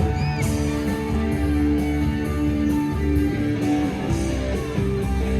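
Background music with electric guitar, bass and a steady beat.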